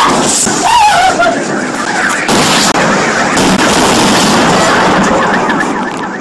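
Shock wave from the Chelyabinsk meteor's air burst: a loud, continuous blast with sharp cracks in it. A voice cries out in the first second or so.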